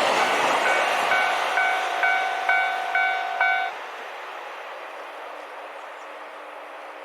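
A level crossing warning bell dings about twice a second over the rushing noise of a passing KiHa 261 series diesel limited express. About three and a half seconds in, the bell stops and the train noise falls away, leaving a fainter steady rumble.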